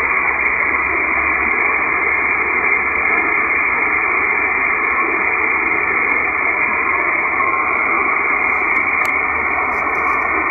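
Malachite DSP SDR receiver on the 20 m band at 14099 kHz upper sideband, giving steady shortwave static through a narrow single-sideband filter that cuts off the high hiss. A faint NCDXF propagation beacon tone comes up briefly through the noise about seven seconds in.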